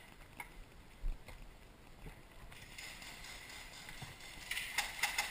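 Mostly quiet, with one low thump about a second in, then a quick run of sharp clicks or knocks near the end.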